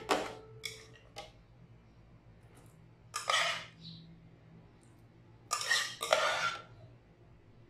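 Metal spoon clinking and scraping against cookware as boiled raw mango pieces are scooped into a plastic food-chopper bowl: a sharp clink at the start and two lighter taps, then three short scrapes, one a little past three seconds in and two close together near the end.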